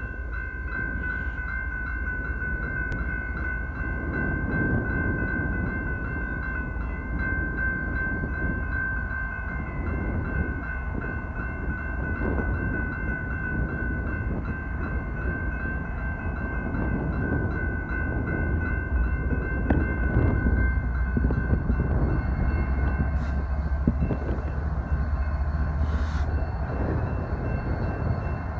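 Railroad grade-crossing warning bell ringing steadily over low wind rumble, with the rumble of an approaching BNSF diesel freight locomotive growing louder through the second half.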